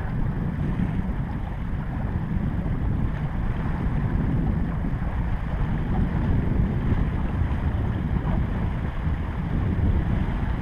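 Steady wind rumble on the microphone aboard a small boat at sea.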